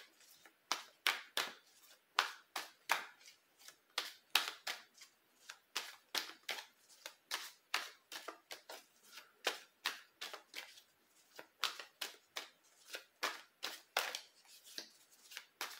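A tarot deck being shuffled by hand, small packets of cards slid from one hand onto the other. It makes a steady run of short card rasps, about two to three a second.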